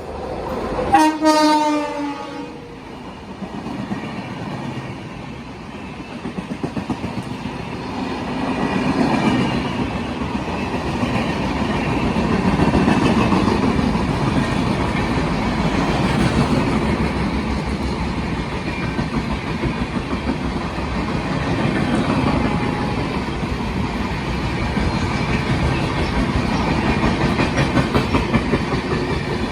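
Express train sounding a short horn blast about a second in, then passing: a long, loud rumble of wheels on rail with a rhythmic clickety-clack.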